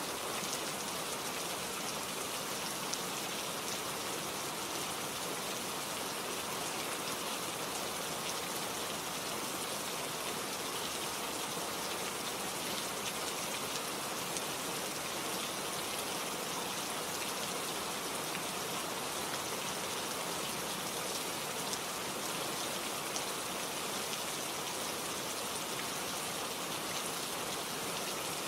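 Steady rain falling, an even hiss with many small drop patters, unchanging in strength.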